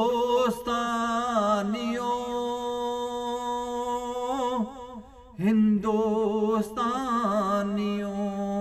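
A man singing the refrain of a Punjabi devotional song, drawing out the word "Hindustaniyo" in long, wavering held notes. Two sung phrases, with a short break about five seconds in.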